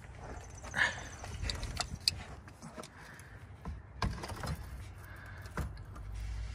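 Metal clicks and knocks of a plier-type oil filter wrench being handled and fitted around a car's oil filter: several sharp clinks over a low steady hum.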